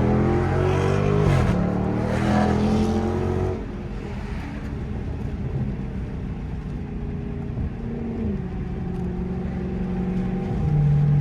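Dodge Charger SRT's V8 accelerating hard, its pitch climbing and stepping down at a gear change. About three and a half seconds in it eases off to a lower, steady cruising note, and it picks up again near the end.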